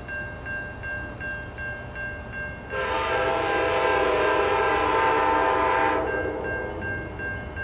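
A locomotive air horn sounds one long blast of several notes at once, starting about three seconds in and lasting about three seconds. Under it, a grade-crossing bell rings steadily, about two and a half dings a second.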